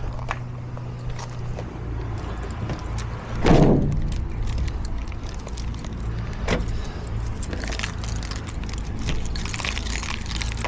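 Small metal clicks and rattles of hand tools and latch parts as a tubular door latch is fitted, with one louder brief rasp about three and a half seconds in and a busier run of clicks near the end, over a steady low hum.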